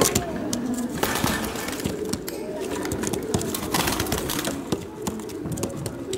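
Pigeons cooing in a busy show hall, over a background of people talking, with scattered sharp clicks and knocks.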